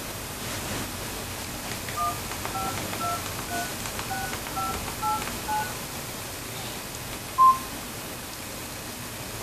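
Phone keypad DTMF touch-tones as a number is dialled: about eight key tones, roughly two a second, then a single louder beep a couple of seconds later, over a steady low hiss.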